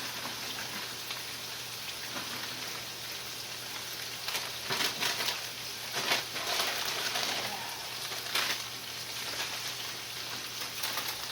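Fatty meat sizzling in a frying pan as it browns: a steady hiss with louder stretches of crackling in the middle.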